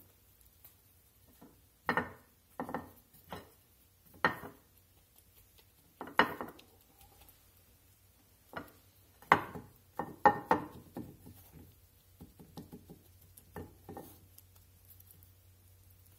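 Hands patting and pressing a wet, egg-washed cube steak into seasoned flour in a ceramic baking dish: about a dozen soft, irregular pats and thuds, the loudest a little past the middle.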